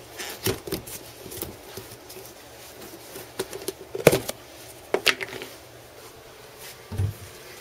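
Plastic cups knocking and clattering against one another and the steel sink as they are picked up and moved about in a cluttered kitchen sink. The knocks are scattered and separate, with the loudest about four seconds in.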